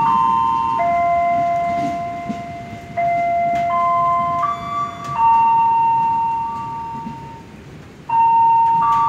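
Station loudspeaker chime playing a slow melody of held, bell-like electronic notes that change pitch every second or two. Under the first couple of seconds, a low rumble from the departing train fades away.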